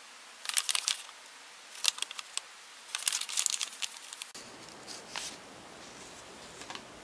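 Paper instruction sheet rustling and crinkling as it is handled and folded, in three bursts. About four seconds in it stops abruptly, leaving a faint steady hiss with a couple of soft ticks.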